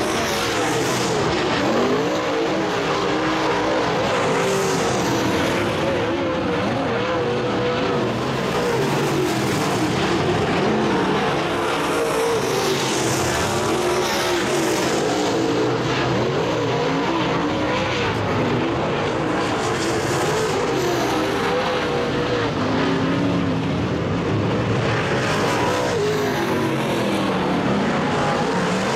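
Several dirt late model race cars with V8 engines running laps on a dirt oval, their engine notes rising and falling as they go through the turns and down the straights.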